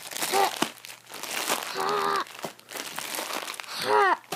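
A small sealed baggie from a toy mystery box crinkling as hands handle it and try to tear it open, with a few short vocal sounds between the crinkles.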